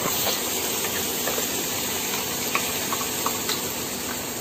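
Hot oil with cumin and ginger-garlic paste sizzling steadily in a frying pan as wet onion paste is spooned in, with a few light clicks of a steel spoon against the bowl and pan.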